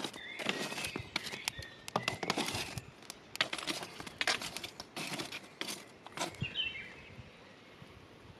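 A wooden stick raking and scraping through charcoal embers and ash, lumps of charcoal clinking and crunching in quick, uneven strokes that stop about six seconds in.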